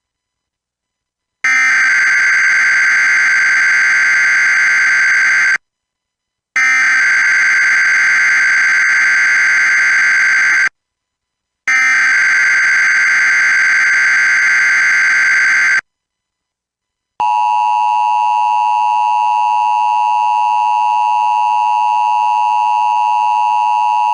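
Emergency Alert System SAME header: three loud screeching data bursts, each about four seconds long and a second apart. About seventeen seconds in, the steady two-tone EAS attention signal (853 and 960 Hz) begins. Together they open a new emergency alert broadcast, here a Child Abduction Emergency (Amber Alert).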